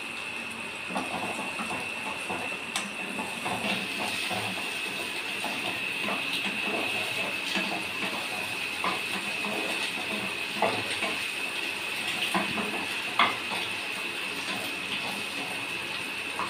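A wooden spatula scraping and stirring scrambled egg, onion and tomato frying in oil in a kadai. The frying gives a steady hiss, the spatula small irregular scrapes and knocks against the pan, and a faint steady high tone runs underneath.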